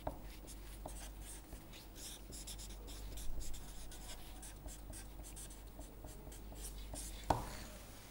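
Felt-tip marker writing on paper: a run of short scratchy strokes, with a sharper tap about seven seconds in as the pen comes down.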